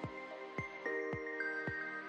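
Background music with a steady beat, just under two beats a second, under held synth notes.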